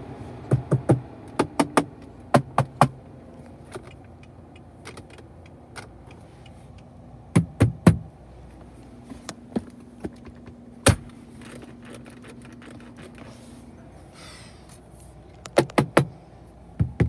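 Knocking and tapping on the Holden VE Commodore's interior plastic trim to test its build quality: sharp knocks in several short clusters, with a faint steady hum underneath.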